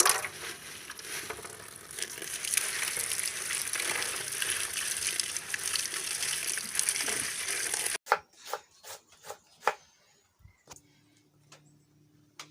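Food sizzling in a hot pan while being stirred, a dense steady hiss. It cuts off abruptly about eight seconds in, leaving a few scattered knocks.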